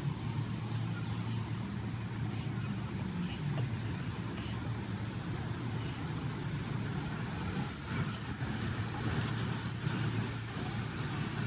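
Steady low rumble of city traffic with a faint wash of street noise above it.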